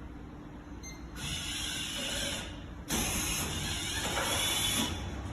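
Reverse vending machine's mechanism running in two stretches, about a second in and again about three seconds in, as it takes in an empty plastic bottle.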